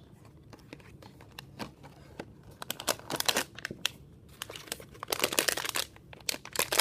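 Crinkling of a shiny foil blind-box bag being handled and pulled from its cardboard box. There are light rustles and taps at first, and dense crinkling from about two and a half seconds in.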